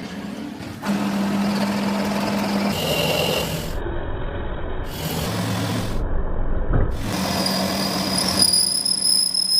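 Workshop machinery and power-tool noise in short cut-together pieces, with a steady low motor hum in some and a high steady whine near the end.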